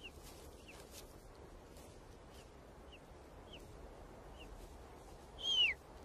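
Golden eagle chicks begging in the nest as they are fed: thin, high peeps that fall in pitch, repeated about every half to three-quarters of a second. One louder, longer call slides down steeply about five and a half seconds in.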